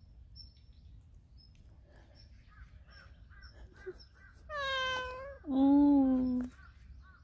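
A stray domestic cat meows twice about four and a half seconds in, the second call lower, longer and louder. Faint bird chirps come and go in the background.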